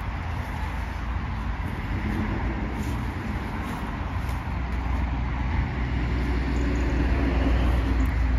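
Vauxhall Vivaro van's diesel engine idling, a steady low rumble that grows louder over the second half.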